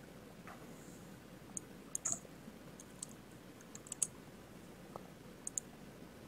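Faint, scattered clicks of a computer mouse and keyboard, a sharp click every second or so, some in quick pairs.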